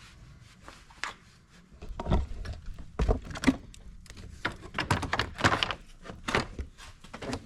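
Irregular knocks, clunks and clicks of a power steering cooler and its fittings being handled and fitted into place in a car's engine bay, the busiest stretch from about two to six seconds in.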